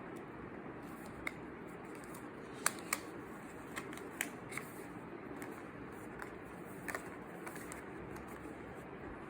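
Packaging being handled: scattered light clicks and taps of cardboard and plastic, sharpest twice close together about a third of the way in, over a steady faint hiss.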